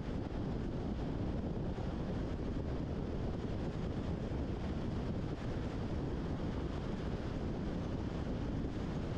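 Steady wind rush on the microphone mixed with tyre and road noise from a car driving at highway speed, a constant low rumble with no change.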